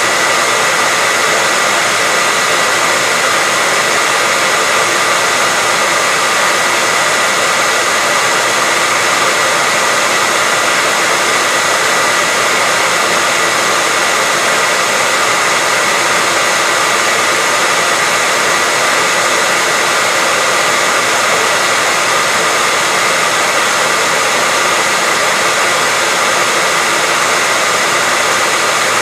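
Hair dryer running continuously at a steady speed: an even rushing blow of air with a steady high whine from the fan motor.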